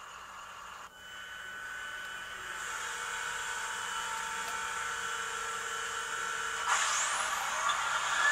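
TCS WoW Sound decoder in an N-scale SC-44 Siemens Charger playing its diesel prime-mover ignition through the model's speaker: a whine starts about a second in and builds to a steady running sound, with a rising sweep near the end as the engine comes up.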